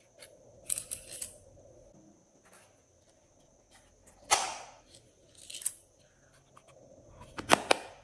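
Small plastic cases being handled: scattered sharp clicks and taps of hard plastic, with a louder rasping rub a little after four seconds and the sharpest clicks near the end.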